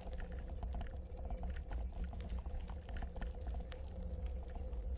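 Bicycle tyres rolling over a gravel trail: rapid, irregular crackling of grit under the tyres over a steady low wind rumble on the microphone, with a faint steady hum.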